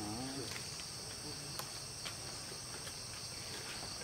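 Steady, high-pitched insect chorus, a continuous shrill drone from crickets or similar insects, with a few faint clicks.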